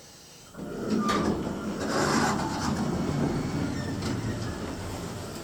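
Elevator doors sliding shut on their own, starting with a click about half a second in: a steady rumble that fades slowly and dies away near the end.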